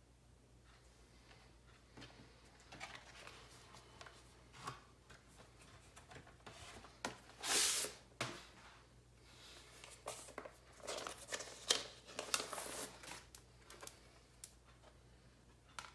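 Paper and card being handled: a vinyl LP in its white paper inner sleeve slides out of the record jacket with a swish of nearly a second about halfway through. Then the paper sleeve rustles as the record is drawn out of it, with light clicks and taps.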